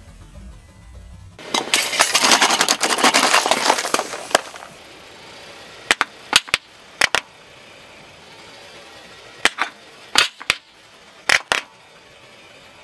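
A crushed drink can hissing and fizzing for about three seconds, then about nine sharp pops, some in quick pairs, as laundry detergent pods burst under a car tyre.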